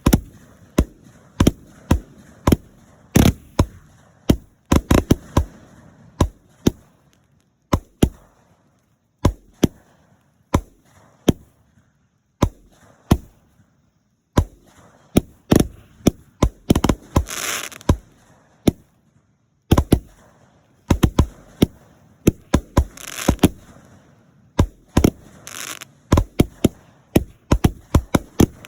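Fireworks going off in a rapid, irregular barrage of sharp bangs, some in quick clusters, with a few brief crackling, hissing passages in between.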